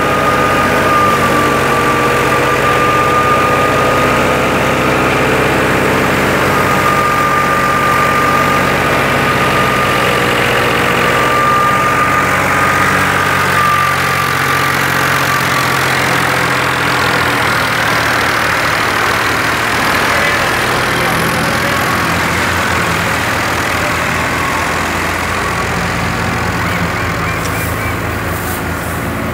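FIAT (New Holland) 480 tractor's three-cylinder diesel running steadily under PTO load, driving a wheat thresher, with a steady high whine over the engine's drone.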